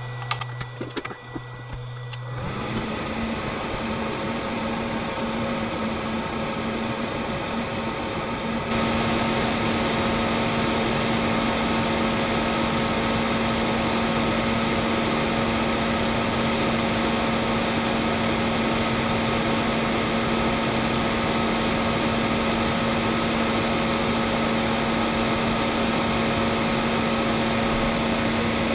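A solder fume extractor fan switches on about two seconds in and runs steadily with a low hum. Around nine seconds in, a hot air rework station joins with a louder, steady rushing hiss as it heats a surface-mount regulator chip on a laptop motherboard to desolder it.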